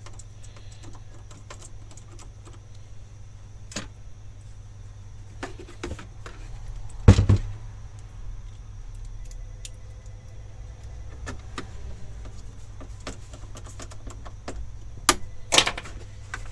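Small clicks and rattles of a screwdriver and plastic case panels being handled while the last screws go into an Asus G20 compact PC case, over a steady low hum. A sharp knock comes about seven seconds in, and a cluster of knocks near the end as the case is picked up.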